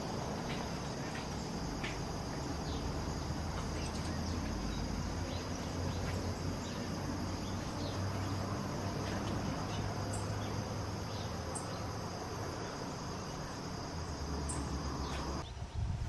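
Steady high-pitched insect chorus over a low background hum, with a few faint short ticks; it cuts off shortly before the end.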